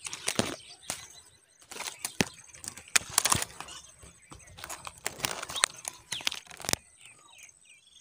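Dry twigs and nest grass rustling and crackling in irregular bursts as they are brushed and pushed aside at a nest, stopping near the end. A few faint high chirps follow.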